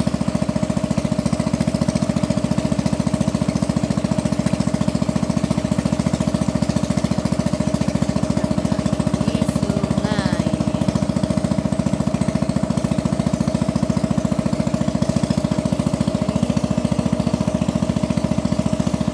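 Boat engine running steadily with a fast, even chugging pulse.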